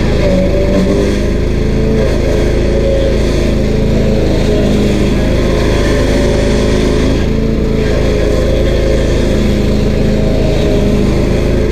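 Stump grinder's 13 HP Honda single-cylinder engine running steadily and loudly.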